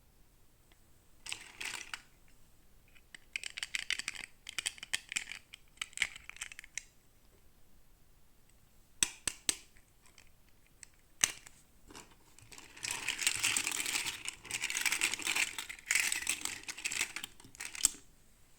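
Plastic toy packaging being handled and opened: bursts of crinkling and tearing, with a few sharp clicks in between and a longer stretch of rustling near the end.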